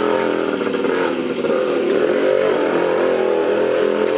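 A vehicle engine running steadily, its pitch shifting slightly up and down.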